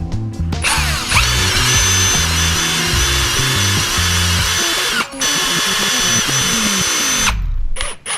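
Handheld electric power tool running at speed, with a steady high whine. It breaks off briefly about five seconds in, then runs again and stops near the end, its pitch falling as the motor winds down. Background music plays underneath.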